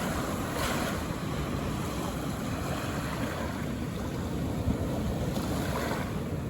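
Calm ocean waves washing in on the shore: a steady rush of surf that swells into a brighter wash about half a second in and again near the end.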